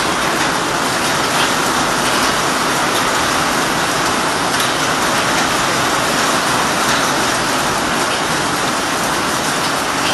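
Torrential rain pouring down, drops splashing on a paved yard covered in standing water: a loud, steady hiss that does not let up.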